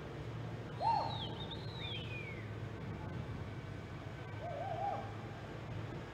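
Spectators whooping and whistling: a loud rising-and-falling whoop with a high falling whistle about a second in, and a shorter wavering whoop about four and a half seconds in, over a steady low hum.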